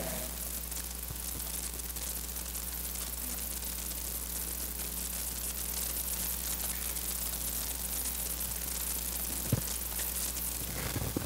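Steady electrical hiss with a low mains hum, and no music playing. One short knock about nine and a half seconds in.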